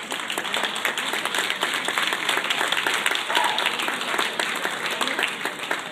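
Spectators applauding, many hands clapping together.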